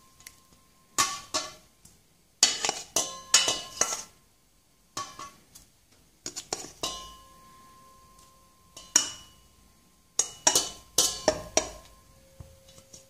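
Metal kitchen tongs clinking and tapping against a stainless steel mixing bowl in quick clusters of clicks, the bowl ringing briefly after some of the hits, as egg-dipped pineapple pieces are set into breadcrumbs.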